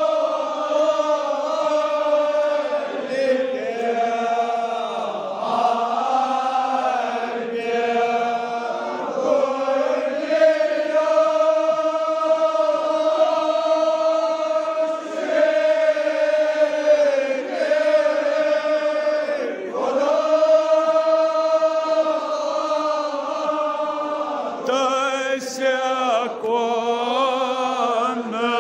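Men's voices chanting a Kashmiri marsiya together, in long drawn-out phrases held on steady notes, with brief breaks between phrases.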